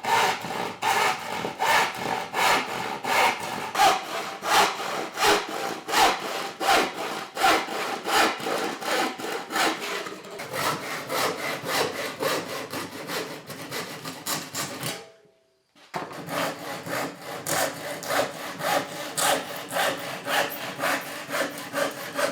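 Hand saw cutting through plywood in quick, even back-and-forth strokes, about three a second, with a brief break about fifteen seconds in before the sawing resumes.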